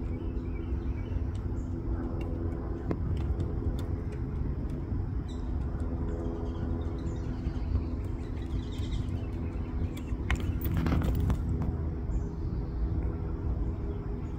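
A vehicle engine running steadily, a low rumble with a constant hum. A few faint high whistles from black-bellied whistling ducks sound over it, and about ten seconds in comes a second-long burst of louder noise.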